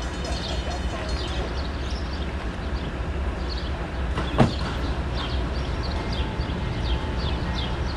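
A steady low rumble, with a bird chirping over it in short, repeated notes that fall in pitch. There is one brief knock about four and a half seconds in.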